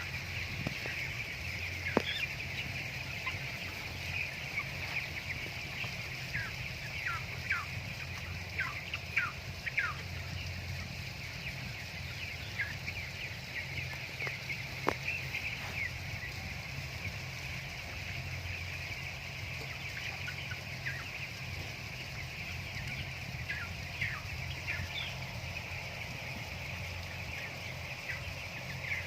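A flock of broiler chickens peeping and chirping all together, many calls overlapping in a steady chorus. Single short, falling chirps stand out now and then. A steady low hum runs underneath.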